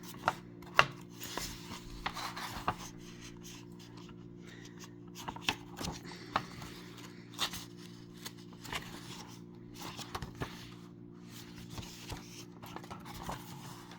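Scattered soft clicks, rubs and scrapes of paper being handled, as of picture-book pages being turned, over a steady low hum.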